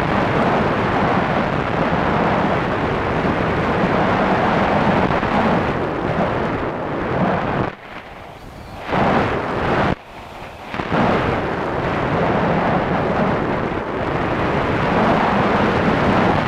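Rushing airflow and buffeting on the onboard camera microphone of a Multiplex Solius RC plane in flight. It drops off sharply for about a second twice, about eight and ten seconds in.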